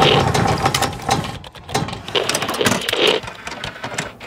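Logo intro sound effects: rapid mechanical clicking and ticking, with swells of noise near the start and about three seconds in.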